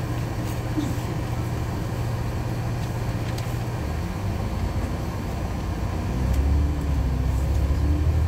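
LiAZ-6213.22 city bus running along the road, heard from inside the passenger cabin: a steady low engine drone that drops in pitch about four seconds in and grows louder from about six seconds on, with a faint gliding whine above it.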